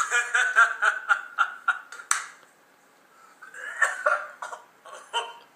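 People laughing in quick choppy bursts, with a sharp short burst about two seconds in, then a pause and a few more bursts of laughter.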